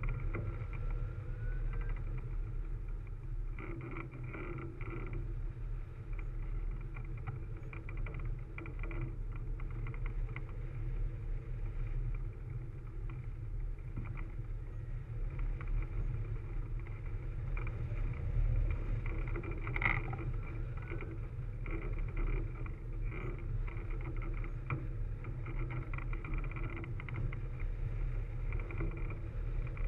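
Steady wind rush and low buffeting from airflow over a camera mounted on a hang glider's wing in flight.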